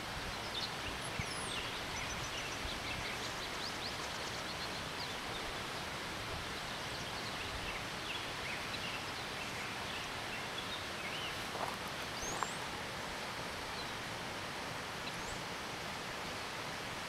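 Steady rushing outdoor background noise with faint, scattered high bird chirps and short rising whistles.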